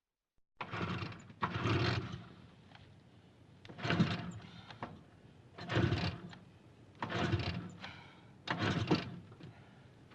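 Motorcycle engine in about six short bursts, each around half a second long, one to two seconds apart, starting after a brief silence.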